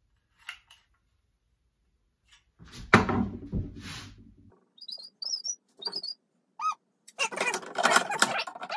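Workshop handling sounds: a sharp knock about three seconds in, then a few short high chirping squeaks. Near the end come rasping strokes, the start of a handsaw cutting into the wooden axe handle.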